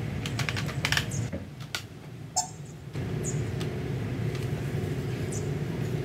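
A quick run of small clicks and rustles, like hands working through hair, in the first couple of seconds. From about three seconds in, a steady low hum sets in with a few faint ticks over it.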